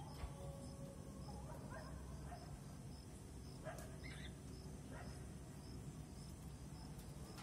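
Faint background ambience: a few short, scattered chirps and a steady high ticking about twice a second over a low hum.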